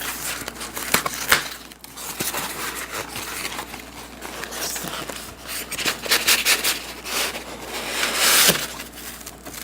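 Cardboard box and packaging being handled and pulled open: irregular scrapes, clicks and rustling, with a longer, louder scraping rustle about eight seconds in.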